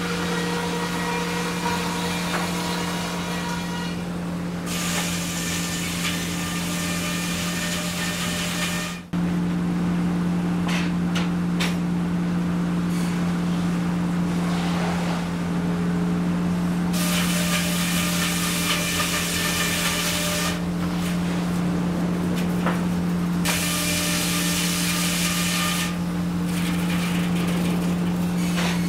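Sawmill machinery running with a steady motor hum, while saws cut through wood three times, each cut a few seconds of high hissing whine over the hum; the saw in use includes a large circular head saw.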